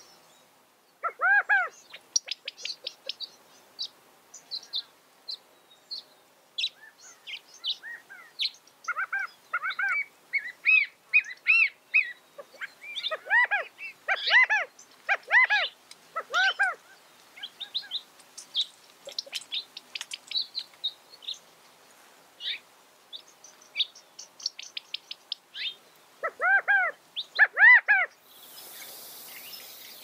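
California quail calling: loud, arching notes in short groups of two to four, over rapid high chirps and trills of small songbirds.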